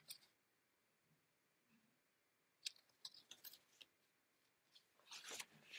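Near silence, broken by a few faint clicks and short paper rustles as a picture book's pages are handled and turned.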